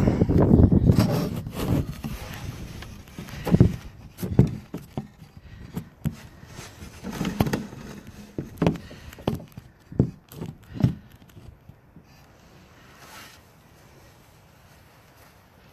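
Wind buffeting the phone's microphone, then a string of knocks and scraping as the phone is handled and set in place, dying away to a low background about twelve seconds in.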